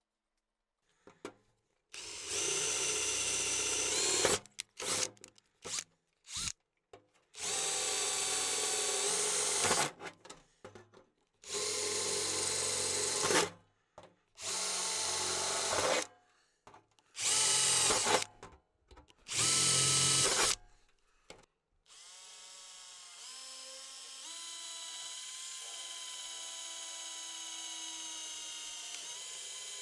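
Bosch cordless drill running in about six separate bursts of two to three seconds each, with small clicks between, as it works on the sheet-metal stove panels. From about two-thirds of the way through it runs continuously and more quietly, its pitch shifting in steps.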